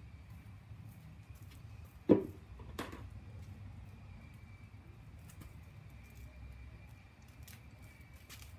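A sharp knock about two seconds in, then a weaker one a moment later, over a faint steady hum.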